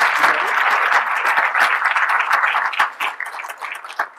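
Audience applauding, a dense patter of many hands clapping that thins out over the last second or so into a few scattered claps.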